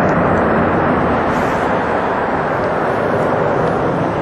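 Jet engines of a three-engined wide-body airliner rolling out on the runway after landing: a loud, steady, even rush of jet noise.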